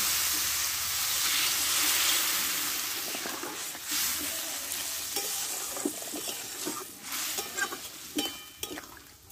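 Water sizzling and hissing as it is poured into a hot kadai of fried ash gourd and fish head, loudest in the first couple of seconds and then dying down into a simmer. A spatula stirs and scrapes the pan through the second half.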